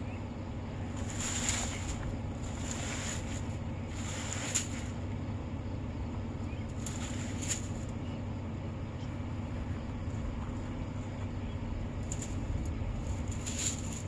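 A motor vehicle's engine running at a steady low drone, with short hissing bursts every second or few.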